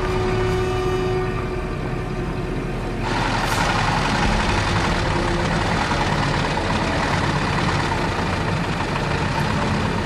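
Motor vehicle engine running steadily with a low rumble. A louder rushing noise joins it abruptly about three seconds in.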